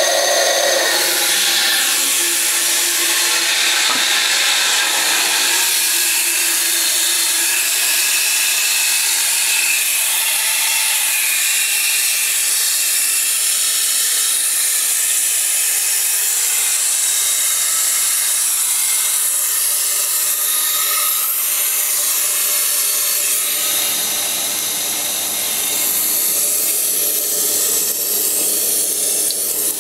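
Crane Galaxy toilet's fill valve hissing loudly as water refills the tank, a steady high rushing hiss with faint whistling tones. Near the end a lower rush of water joins in.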